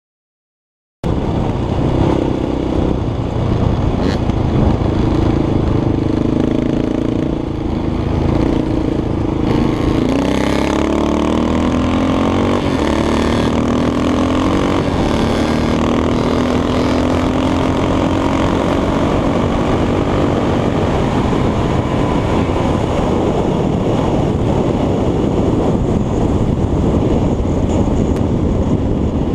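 2006 Yamaha Raptor SE quad's single-cylinder four-stroke engine running hard at speed, heard close from the rider's helmet. The sound cuts in about a second in; the engine note dips around ten seconds in, then climbs slowly for several seconds as the quad accelerates.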